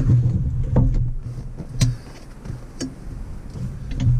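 A car's front passenger seat being handled and shifted onto its floor mounts, making a few sharp knocks about a second apart over a low hum.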